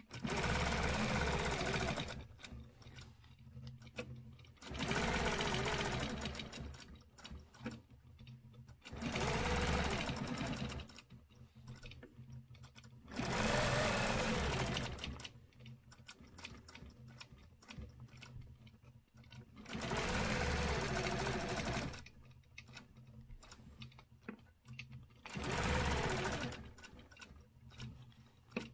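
Sewing machine stitching free-motion with a hopping ruler foot for ruler-work quilting, running in six short bursts of about two seconds each and stopping in between.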